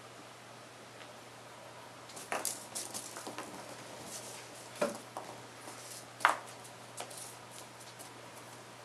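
Kittens playing on a tile floor: scattered light taps and scrabbling of paws and claws and a knocked-about corn cob, with a few sharper knocks about two and a half, five and six seconds in.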